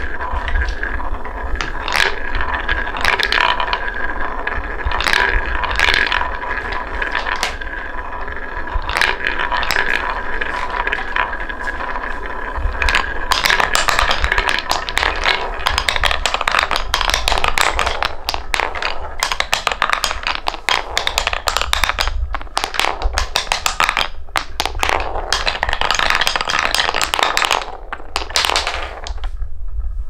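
Several balls rolling around a wooden bowl with a steady rolling hum and scattered clicks. From about halfway through they clatter quickly down a wooden block track in a dense run of clicks and knocks, which dies away near the end.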